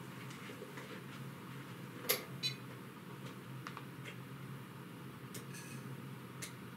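A few quiet clicks and two brief, faint electronic beeps over a low steady hum, from a freshly powered 5-inch quadcopter as it arms and then disarms itself, a habit the owner puts down to Dshot.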